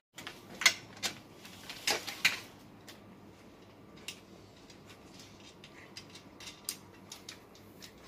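Metal tubes and fittings of a baby cot clinking and knocking as it is put together: a handful of sharp knocks in the first couple of seconds, then only faint scattered ticks.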